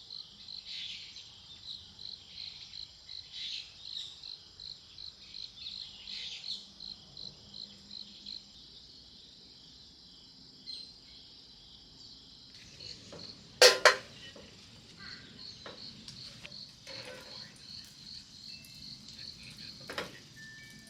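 Insects chirping in high, even pulses, about three a second, which stop for a few seconds midway and then start again. A sharp double knock about fourteen seconds in is the loudest sound.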